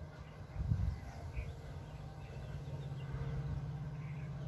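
Faint bird chirps and calls scattered over a steady low rumble, with a brief low thump about three-quarters of a second in.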